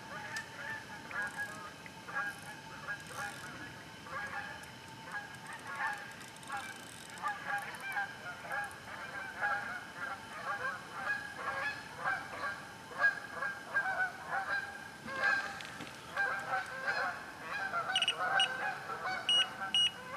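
A flock of geese honking, many overlapping calls throughout. Near the end, a run of short electronic beeps from a carp bite alarm.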